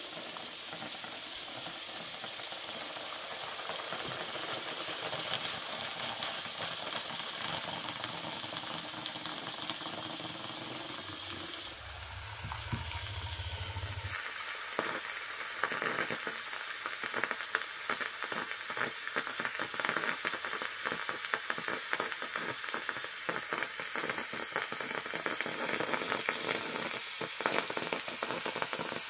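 Charcoal burning in molten potassium nitrate in a steel bowl, giving a steady sizzling hiss. After about half, it turns into a busier crackle with many sharp snaps.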